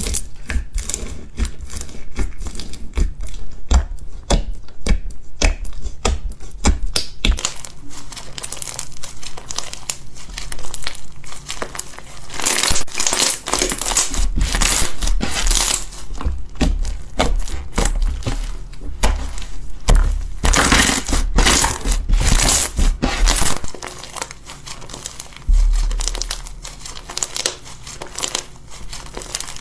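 Slime being squeezed and worked by hand. For the first seven seconds or so it makes quick sharp pops and clicks, then a denser crinkling, crackly squish.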